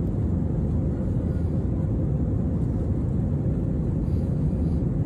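Steady cabin roar of a jet airliner climbing shortly after takeoff: engines at climb power and rushing air, heard from inside the cabin as a low, even rumble with a faint steady hum above it.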